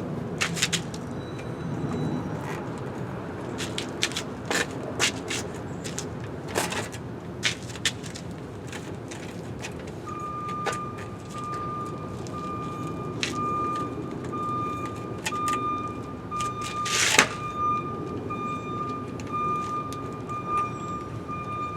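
Knocks and clicks of an electric bike being shifted and set on a work stand's rubber feet, the loudest a sharp knock about seventeen seconds in. From about halfway through, a steady high beeping tone that pulses on and off comes in.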